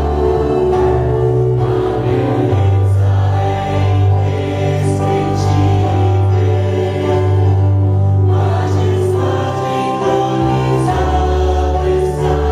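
Worship music in a church service: a group of voices singing together with instrumental backing, over sustained bass notes that change every second or two.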